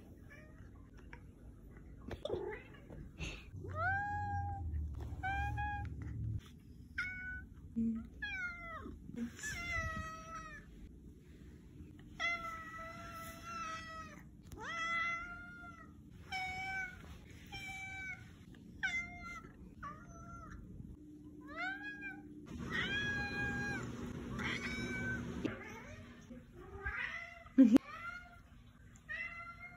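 Tabby cat meowing over and over, about one short meow a second, some of them drawn out. A single sharp knock sounds near the end.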